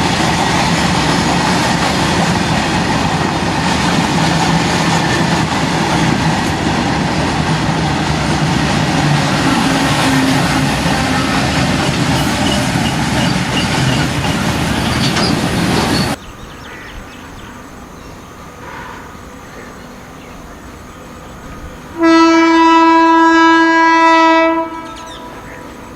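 A passing freight train's wagons run loudly over the track, with wheels clacking on the rails, then cut off suddenly. About six seconds later an Indian Railways locomotive horn sounds one steady blast of about two and a half seconds.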